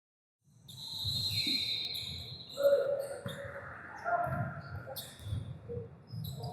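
Short high chirping squeaks over indistinct background voices and low thuds.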